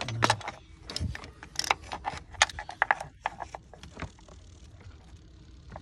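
Metal pliers clicking and clacking against the engine's solenoid and the parts around it as they grip the solenoid to pull it out. The sharp clicks come thick and fast for about three seconds, then thin out to a few.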